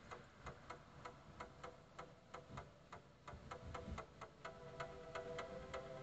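A quiet, regular ticking, about four ticks a second, joined about four and a half seconds in by faint steady tones.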